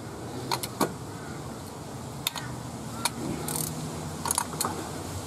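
Ratcheting spanner clicking as a nut on a car's front suspension is worked, a handful of separate clicks spread unevenly over several seconds.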